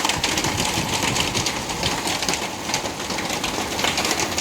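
Hail falling hard: a dense, steady clatter of countless small stones striking.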